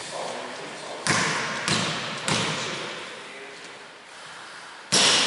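A basketball bounced three times on a hardwood gym floor, about two thirds of a second apart, each bounce echoing in the hall, as the shooter dribbles before a free throw. Near the end comes a much louder sudden bang.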